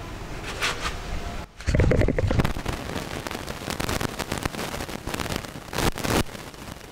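A person falling on the rock steps of a cave with the camera in hand: a heavy thud about two seconds in, then a run of knocks, scrapes and rustling as the camera is jostled, and another hard bump near the end.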